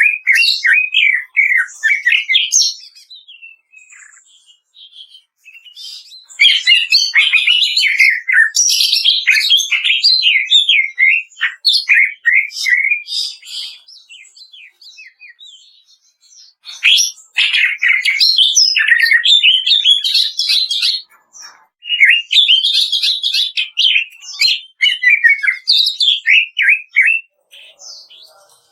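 Greater green leafbird (cucak ijo) singing in fast chattering phrases of quick, rattling notes, the 'kretekan' style of its song. There are four bursts of song with short pauses between them.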